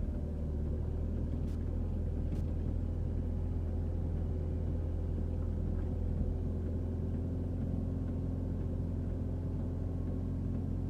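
Excavator's diesel engine running steadily with a low, even drone.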